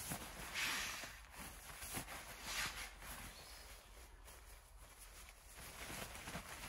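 Quiet rustling and light knocks of camping gear being handled, with two short swishes about two seconds apart.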